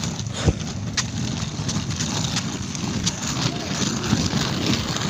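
Rumbling wind and handling noise on a handheld phone's microphone as it is carried and jostled, with a sharp knock about half a second in.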